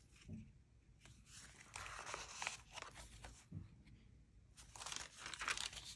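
Paper rustling and crinkling as the pages, tags and pockets of a handmade junk journal of old paper and ephemera are handled and turned, in two spells: one in the middle and one near the end.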